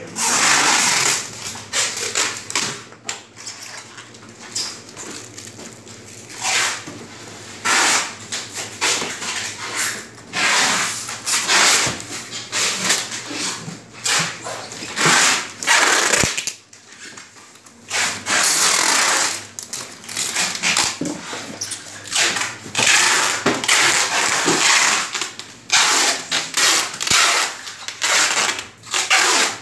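Packing tape pulled off the roll in repeated rasping strips, each a second or so long, as boxes are sealed.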